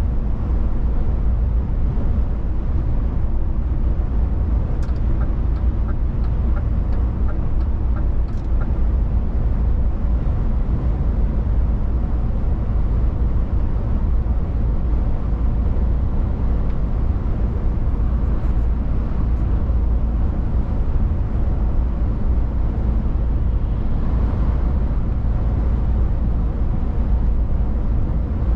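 DAF XF 480 truck cruising on the motorway: a steady low drone of its PACCAR MX-13 straight-six diesel engine together with tyre and road noise. A run of faint ticks comes about five seconds in.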